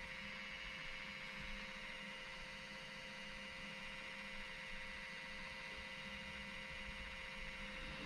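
iRobot Roomba j7 robot vacuum running steadily, a constant motor hum with a higher whine over it.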